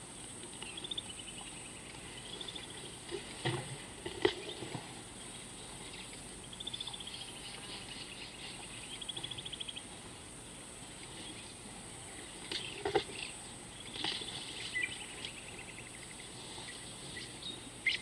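Outdoor wildlife ambience: a steady high insect hiss with repeated short trilling calls. A few sharp snaps and crunches of vegetation, about three to four seconds in and again near thirteen seconds, as an African elephant tears at grass and bushes while feeding.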